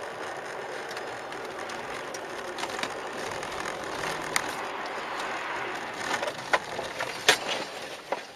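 Steady vehicle and road noise, with several sharp knocks and cracks over the second half, the loudest a little past seven seconds in.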